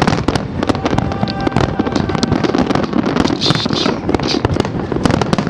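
Fireworks display: a dense, unbroken run of crackling and popping bursts, many per second.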